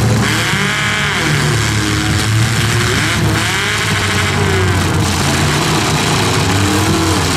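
Engines of several demolition derby cars running together, revved up and down again and again over a steady low drone.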